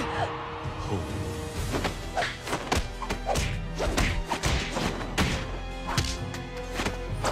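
Animated fight sound effects: a rapid run of punch and block impacts, about two or three a second, over background music with held tones.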